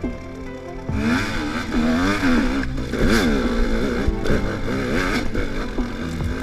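Husqvarna enduro dirt bike engine revving up and down repeatedly from about a second in as the throttle is worked over rough ground, with a few knocks from the bike.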